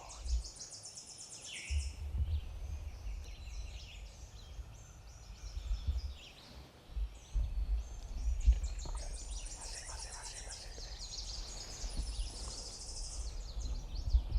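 Woodland songbirds singing high, rapid trills, several phrases overlapping, over a low rumble.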